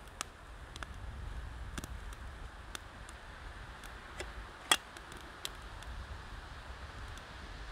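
Irregular sharp clicks and snaps, about ten of them, one much louder about two-thirds of the way in, over a low steady rumble.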